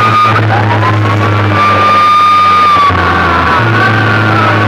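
A horn-loudspeaker sound system plays music at very high volume. A siren-like tone slides up and holds for a couple of seconds, then changes to a wavering higher tone about three seconds in, over a steady deep bass drone.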